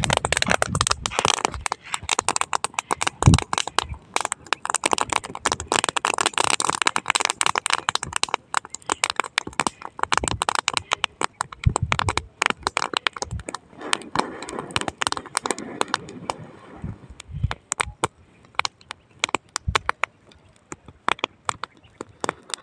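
Dry crop stubble burning, crackling with many sharp pops. They come thick and fast in the first half and thin out toward the end.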